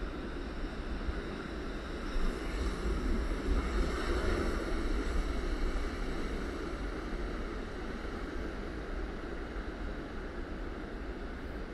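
Rough sea surf breaking and washing over the rocks of a cove, a continuous roar that swells about two to five seconds in and then eases, with a low wind rumble on the microphone underneath.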